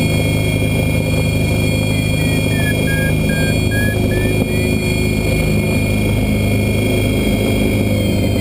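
Steady rushing airflow over the Swift Lite-E glider's cockpit in flight, with a variometer's audio tone beeping: about three short beeps a second starting a couple of seconds in, dropping and then rising again in pitch, and starting again near the end. A climb-tone vario beeps like this when the glider is in lift.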